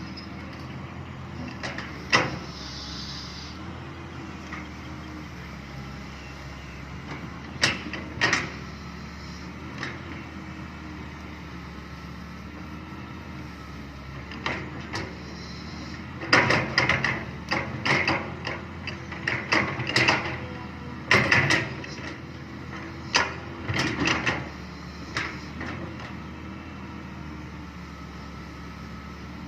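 Excavator's diesel engine running steadily, with sharp metallic clanks and knocks from the working machine, scattered early and coming thick and fast for several seconds in the second half.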